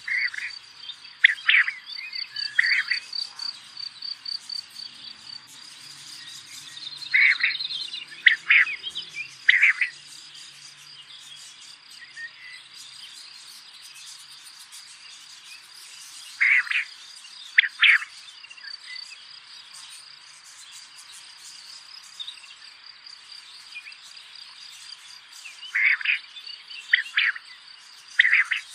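Steady, high-pitched trilling of crickets or other insects, with short, loud chirping calls that come in clusters of two or three every several seconds.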